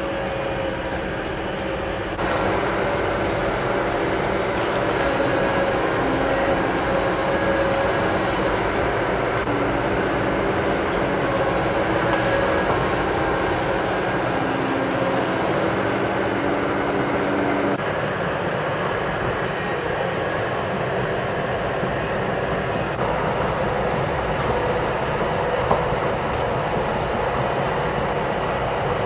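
Heavy machinery's diesel engine running steadily, the sound changing abruptly about two seconds in and again near eighteen seconds.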